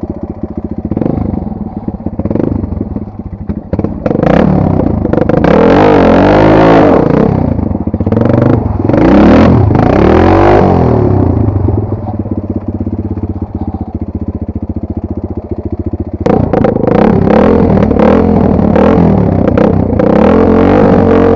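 Enduro motorcycle engine revving up and down again and again under load, settling to a steadier lower note for a few seconds, then revving again with sharp knocks and clatter in the last part.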